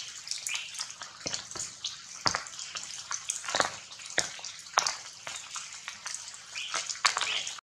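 Rain dripping onto leaves: an irregular patter of sharp drops over a steady hiss.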